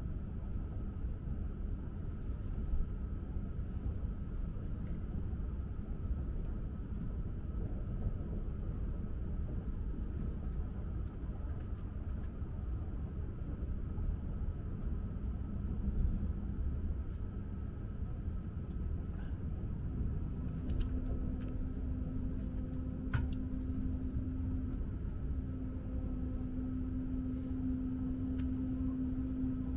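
Komachi Shinkansen (E6 series) train heard from inside the passenger car: a steady low rumble of running noise, with a few faint clicks. A steady hum comes in about two-thirds of the way through and holds to the end.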